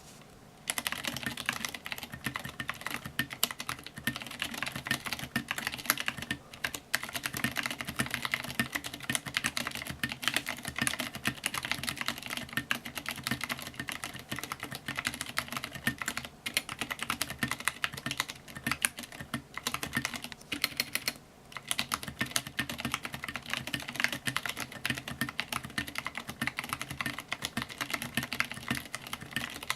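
Continuous fast typing on a KUL ES-87 mechanical keyboard: a dense run of keystroke clacks with a few short breaks, such as near 7, 16 and 21 seconds in.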